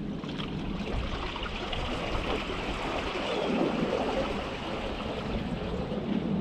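Seawater washing and trickling among shoreline rocks, a steady rushing noise.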